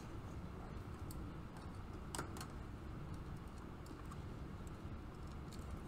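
A few small scattered clicks and ticks of wire leads being handled and pushed into terminal connections on a PLC trainer panel, the sharpest about two seconds in, over a steady low background hum.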